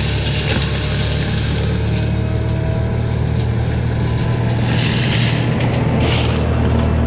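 Heavy forestry mulching machine's engine running steadily under load, with brief rushes of hiss about five and six seconds in.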